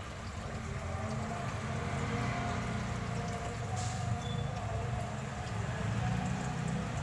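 Steady aquarium aeration and filter noise: water bubbling and trickling over a constant low motor hum.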